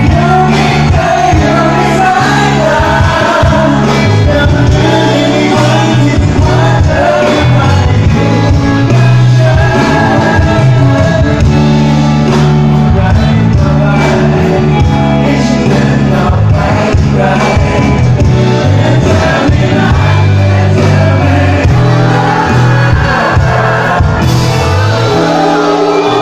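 Live pop band playing loudly, with a singer's voice over the drums, bass and guitars.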